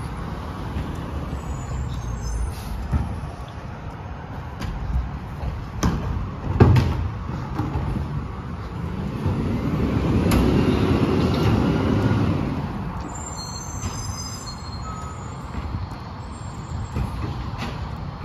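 Diesel rear-loader garbage truck running down the street, with a couple of sharp metallic bangs about six seconds in as trash is loaded. The engine rises in speed for a few seconds near the middle and then settles back.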